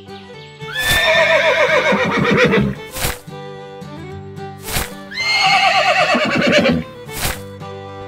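Two horse whinnies, each about two seconds long with falling pitch, over steady background music. There are a few short sharp sounds between the calls.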